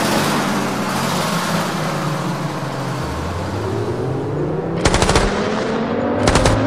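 A bus engine running as it pulls away, its pitch slowly rising, with two short bursts of rapid automatic gunfire about a second apart near the end.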